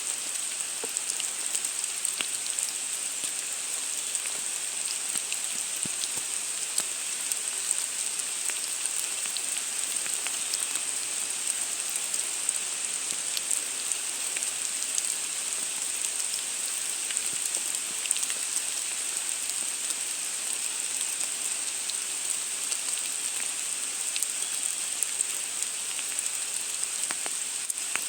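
Steady rain falling, a constant hiss with many small, scattered drop ticks.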